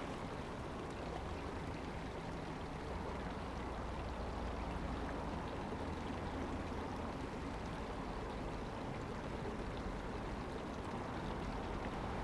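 Steady rush of water flowing along a concrete canal.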